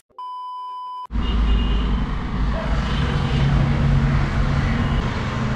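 A brief steady electronic tone lasting under a second, then a steady low outdoor rumble with hiss that runs on evenly.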